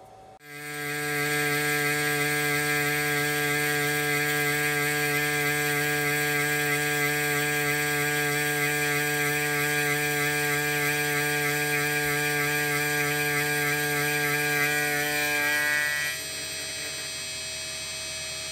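End mill on a CNC milling machine cutting a step into a metal block: a loud, steady, pitched whine over a hum. About sixteen seconds in it drops and turns quieter, with the spindle still running.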